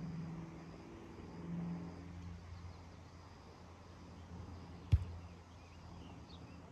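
Quiet outdoor ambience with a steady low hum, wavering in pitch during the first couple of seconds, and a single sharp knock about five seconds in.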